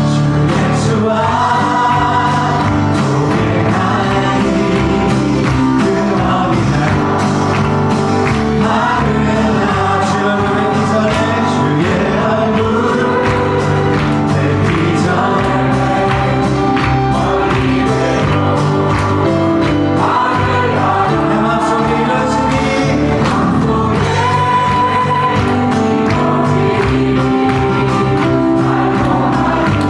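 A choir singing a Christian worship song with instrumental accompaniment, sustained and continuous.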